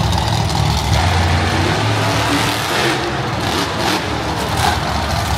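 Monster truck engines running loudly. A few brief rushes of noise come in the second half as a truck climbs over the crushed cars.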